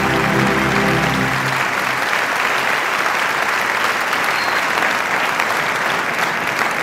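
Audience applauding at the end of a song, over the last held chord of the accompaniment, which dies away about a second and a half in while the clapping goes on.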